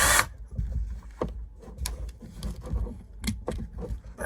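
Scattered small clicks and taps of a die-cast toy car and its small metal and plastic parts being handled, with low bumps close to the microphone and a short hiss at the very start.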